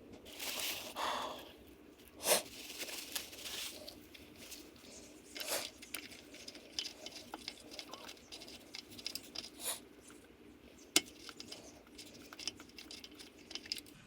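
Hands working on a portable generator: scattered knocks, sharp clicks and rustling as parts and containers are handled, with a few louder knocks among them.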